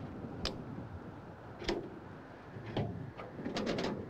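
Sharp metallic clicks and clacks of a starter cartridge being handled and loaded into the breech of a Coffman cartridge engine starter, a few single clicks spaced about a second apart, then a quick run of clicks near the end.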